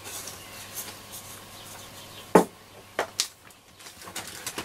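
Handling noise from hands working small parts at a wooden-cased transistor radio: a few sharp clicks and taps, the loudest about halfway through, then two more close together, with light rustling between.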